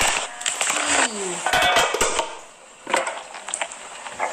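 Kitchen cooking sounds: a string of sharp clicks and knocks from utensils and food being handled, with a short scraping or crunching stretch about a second and a half in.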